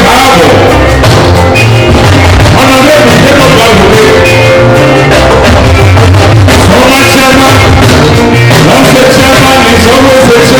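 Juju music played by a band, with a singing voice over continuous instrumental accompaniment.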